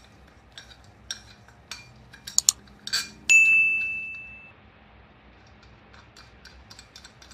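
Small metal clicks and clinks from a bathtub trip-lever drain assembly being handled and its threaded rod turned, with one clear metallic ding a little over three seconds in that rings for about a second as it fades.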